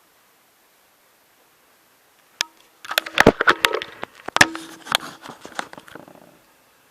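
Handling noise: a single sharp click about two and a half seconds in, then a quick run of clicks, knocks and rattles for about three and a half seconds, two of them leaving a brief ringing tone.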